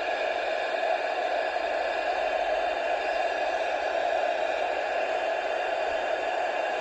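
Steady hiss of static from a CRT Millennium CB radio's speaker, the receiver open on a channel with no signal.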